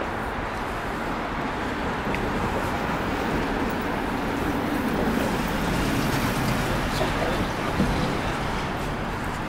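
Road traffic noise: a steady rush of passing vehicles that swells in the middle as one goes by.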